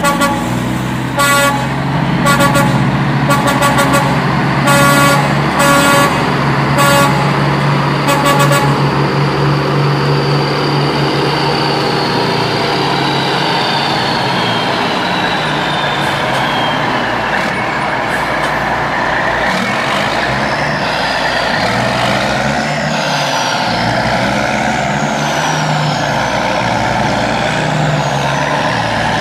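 Heavy truck sound effect: an engine running steadily, with a string of short horn toots over the first eight or nine seconds.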